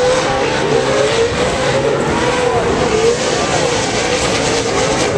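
A pack of off-road race trucks running at race speed on a dirt track. The loud engine note wavers up and down as the drivers rev and lift, over a steady rush of noise.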